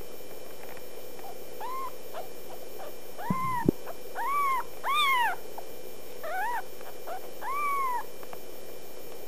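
Kitten mewing: about six short, high-pitched mews, each rising and then falling in pitch. A dull knock comes midway, under a steady faint hum.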